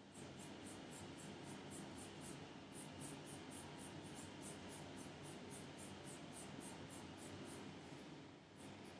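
Fine nail-art brush working thick bijou gel over a plastic nail tip: faint, quick, even scratchy strokes, about three or four a second, with a short pause about eight and a half seconds in.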